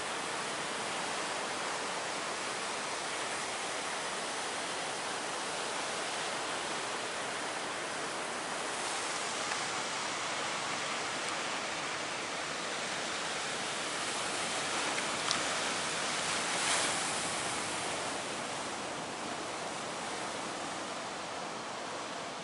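Large ocean waves breaking onto the shore, a continuous rush of surf that swells a little louder twice, with one brief click partway through.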